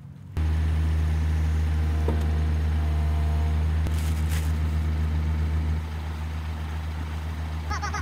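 A heavy diesel engine idling steadily, a low even hum that comes in abruptly just after the start and drops slightly in level about six seconds in.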